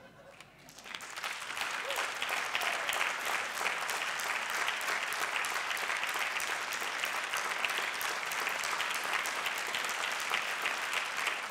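Audience applauding, the clapping building up about a second in and then holding steady.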